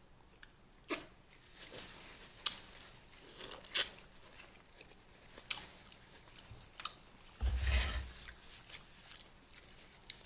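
Close-miked eating of a seafood boil: chewing, with sharp crunches and clicks every second or so. A louder crackling burst with a low thump comes about three-quarters of the way through.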